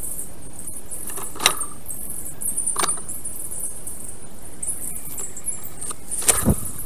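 Outdoor ambience at a black stork's nest camera: a steady hiss with fast, high-pitched chirping. It is broken by a few short knocks, the loudest a low thump near the end.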